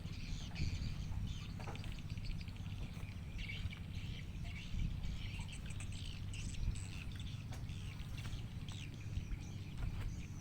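Birds chirping and calling in quick short notes over a steady low rumble.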